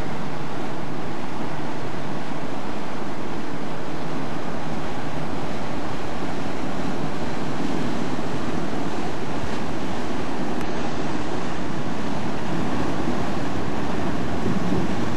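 Steady, loud rush of wind buffeting the microphone and sea wash on board a ferry under way.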